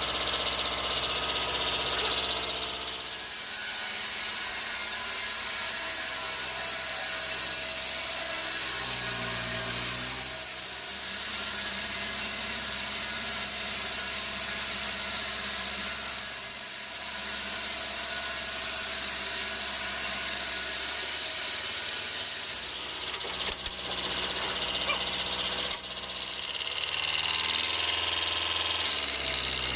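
Sawmill machinery running steadily: a constant motor hum under a high, hissing whine, with a few sharp knocks a little over three-quarters of the way through.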